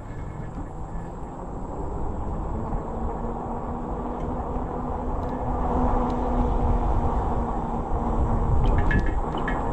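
Riding noise from a fat-tire e-bike: a low rumble of tyres and wind on the microphone that grows louder as it picks up speed, with a faint steady hum through the middle and a few light clicks near the end.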